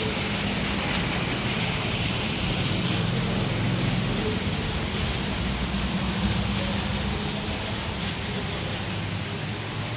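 Steady rushing noise with a low, even hum underneath.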